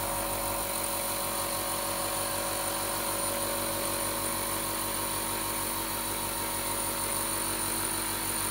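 Air compressor running steadily with a fast, even low pulsing, under the steady hiss of a pneumatic spray gun spraying a GAZelle cab.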